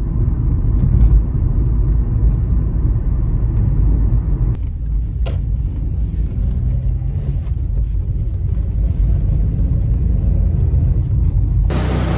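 Car driving on a road, heard from inside the cabin: a steady low rumble of engine and tyres. A single sharp click about five seconds in.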